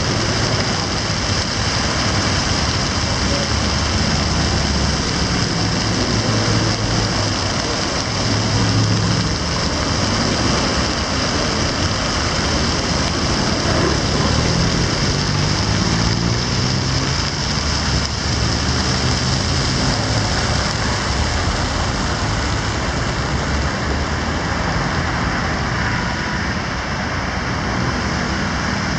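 Steady city road traffic: a constant wash of tyre and engine noise, with the low hum of vehicle engines rising and falling as cars pass.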